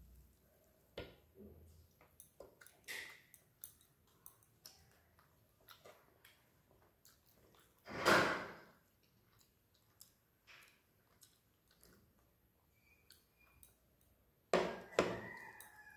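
Eating by hand at a steel plate: small wet squishes and clicks of fingers mixing rice and fish curry, with light chewing noises. A metal curry bowl clatters against the steel plate about halfway through, and there is another cluster of clatters near the end.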